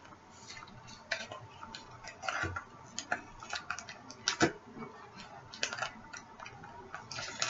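Light, irregular clicks and crinkles of a small cosmetic package, the under-eye gel patches' packaging, being handled and opened, with one sharper click about halfway through.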